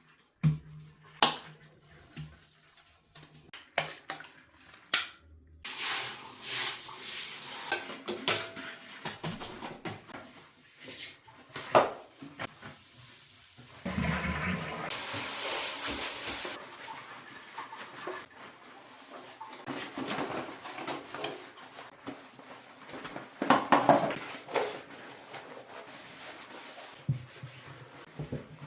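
Household objects being handled: scattered clinks and knocks, a few of them sharper, with a rushing hiss lasting a couple of seconds about halfway through.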